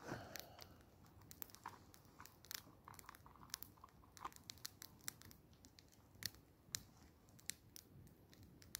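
Wood campfire crackling faintly, with irregular sharp pops from the burning logs.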